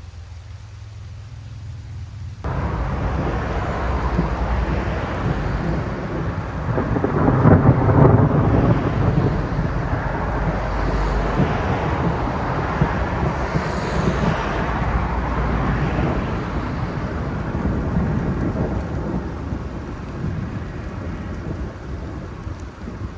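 Thunder: a sudden loud clap about two and a half seconds in, then a long rolling rumble that peaks a few seconds later and slowly fades, with rain in the background.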